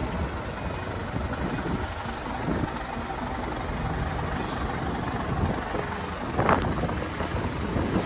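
Low steady rumble from a Mitsubishi Fuso heavy truck, with wind on the microphone. A short, high air hiss comes about four and a half seconds in, and a louder, rougher burst about two seconds later.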